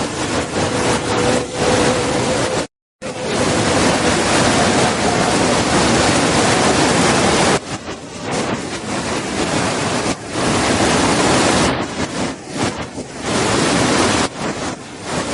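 Waterfall's water rushing in a loud, steady roar that briefly cuts to silence about three seconds in.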